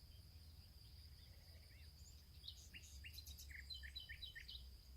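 Faint birds chirping, with short scattered calls that come thicker in the second half, over a faint steady high insect-like trill.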